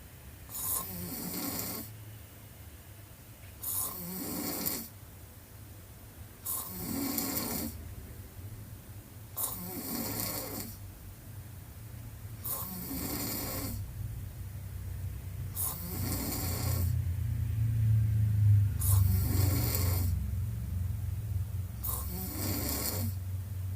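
A woman snoring with her mouth wide open: a breathy snore about every three seconds, eight in all. A low drone runs beneath and swells loudest about two-thirds of the way through.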